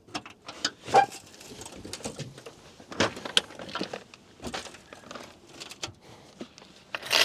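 Fishing tackle being handled while a catfish rig with a big bait and an 11/0 hook is set up: irregular clicks, knocks and rustles, loudest about a second in and again just before the end.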